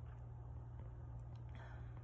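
Quiet pause in a sneezing fit: a faint breath drawn in about three-quarters of the way through, over a steady low hum.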